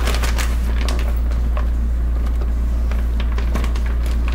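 Light clicks and rustles of kitchen handling, sharpest in the first second and again near the end, over a steady low hum.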